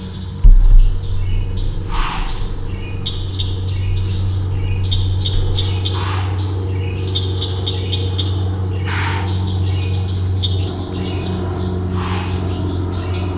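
Evening chorus of insects: a steady high drone with chirping trills over it, and a falling call repeated about every three seconds. A loud low thump about half a second in, over a steady low rumble.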